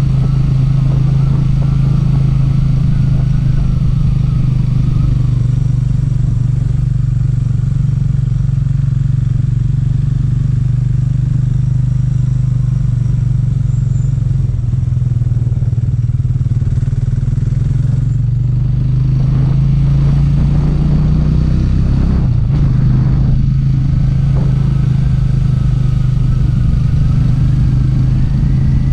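Cafe 400 motorcycle engine running at a steady cruising pace, with wind and road noise. About three-quarters of the way through the engine note briefly dips and changes, then settles again.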